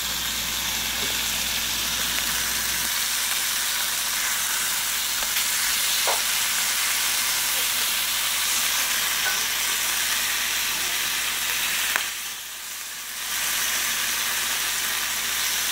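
Redtail surf perch fillets sizzling steadily in oil and a soy-based sauce in a nonstick frying pan as they are turned over, with a light tap or two from a wooden spatula. The sizzle dips briefly about twelve seconds in, then comes back.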